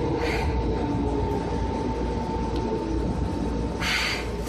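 Seibu 2000 series electric train running, a continuous low rumble with a steady high tone over it. A brief hiss comes just after the start, and a louder one about four seconds in.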